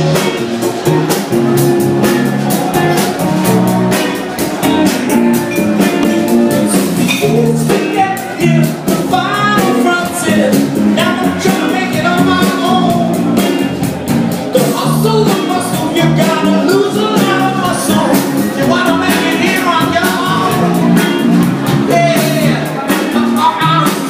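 Soul band playing a song with a steady beat, and a singer's voice coming in about eight seconds in.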